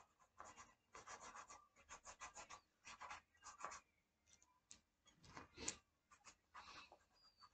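Pencil drawing on paper: faint scratching in runs of quick short strokes, with brief pauses between them.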